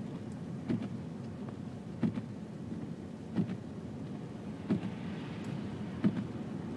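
Car cabin noise while driving slowly on a snow-covered road: a steady low engine and tyre rumble, with a light knock repeating about every second and a third.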